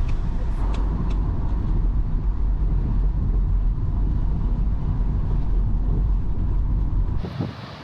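Road vehicle driving, a steady low rumble of engine and road noise that cuts off abruptly about seven seconds in, giving way to a quieter, hissier sound.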